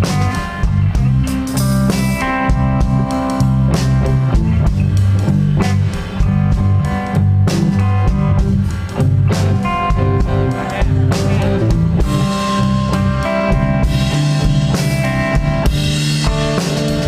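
Live band playing an instrumental passage with no singing: two electric guitars carrying sustained melodic notes over bass guitar and a drum kit, with cymbals getting louder in the last few seconds.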